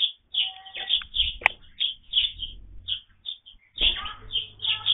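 Birds chirping in short, quickly repeated calls, mixed with taps and knocks at a wooden feeder as a Eurasian jay pecks at fat balls; one sharp click about a second and a half in.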